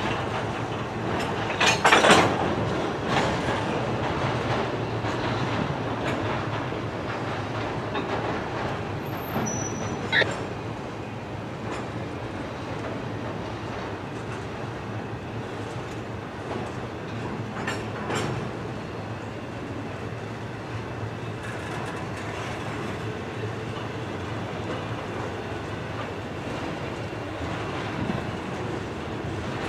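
Freight train cars rolling past, their wheels clattering steadily over the rail joints, with a few louder knocks and a brief high squeal about ten seconds in.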